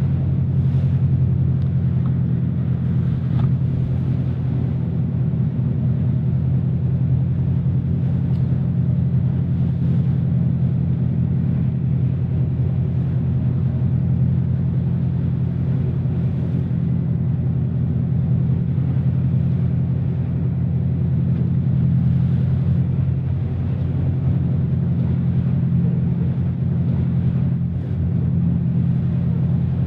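A boat's engine running with a steady low drone, heard from on board a small boat, with an even hiss above it.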